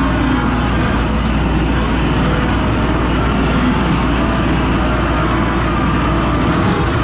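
Skid steer engine running steadily.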